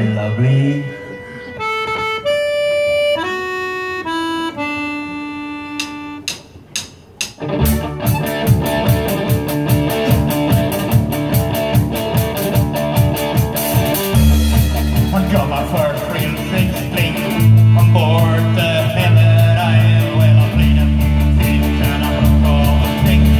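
Live folk-rock band starting a song: an accordion plays a slow melody of held notes alone, then about seven seconds in the drums and guitar come in together at a steady, driving beat, with heavy bass notes joining partway through.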